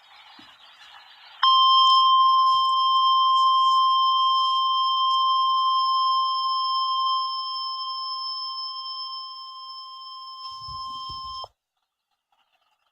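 NOAA Weather Radio warning alarm tone, the single 1050 Hz tone, sounding steadily for about ten seconds before a severe thunderstorm warning is read. It starts about a second and a half in out of faint receiver static, fades gradually and cuts off suddenly near the end.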